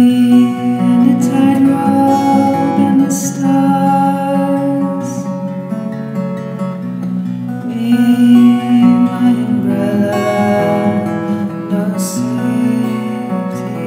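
Background music with plucked acoustic guitar.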